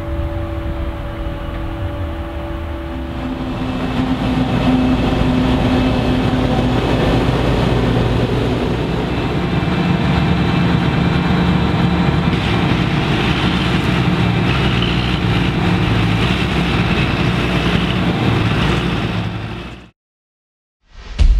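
Farm machinery running steadily: a tractor's diesel engine and a forage harvester working a maize field, getting louder a few seconds in. The sound cuts off suddenly about twenty seconds in.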